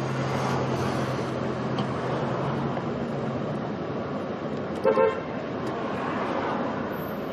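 Street traffic noise with a low engine hum, and a short car horn toot about five seconds in.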